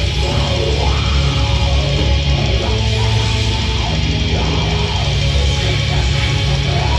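Heavy metal band playing live at full volume: distorted electric guitar and bass over drum kit and keyboard, with the bassist's vocals at the microphone.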